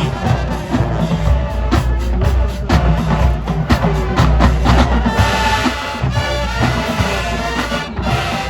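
High school marching band playing loudly: brass over a drumline with heavy bass drums, the brass holding a sustained chord from about five seconds in.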